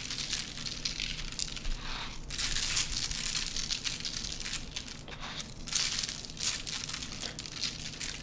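Salt and pepper being added by hand to cut potatoes, onion and cauliflower on a parchment-lined baking sheet: a dry, uneven crackle of grains landing on the paper, a little louder a couple of seconds in.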